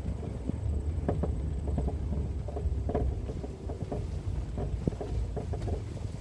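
1999 BMW 328i convertible rolling slowly in reverse: a steady low rumble with irregular clicks and knocks. This is the odd noise from the rear of the car, which the owner suspects comes from the storage area.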